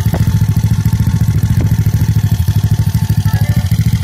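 Icebear Mad Dog's single-cylinder four-stroke scooter engine, bored out to 171cc, idling steadily with a rapid, even exhaust beat.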